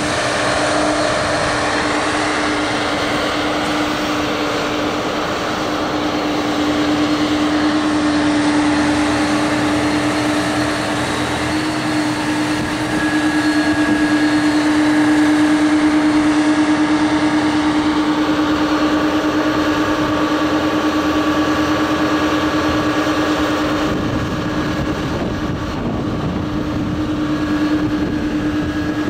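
John Deere 9560R tractor's six-cylinder diesel running steadily with a strong, even hum, driving the hydraulics that tip a loaded Miskin DW25 dump wagon to unload it.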